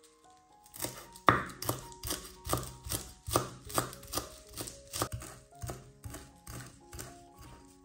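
Knife chopping on a cutting board, an even run of sharp strokes about two and a half a second, starting just under a second in, over soft background music.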